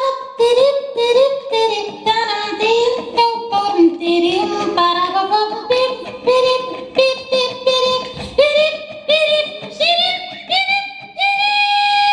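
Woman singing in a high voice in quick, short notes that step up and down, with a long held high note near the end, over her own acoustic guitar.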